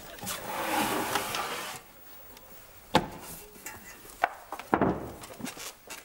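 A metal safety deposit box being handled: a long rubbing scrape as it slides out of its slot in the vault wall, then several sharp knocks and clicks.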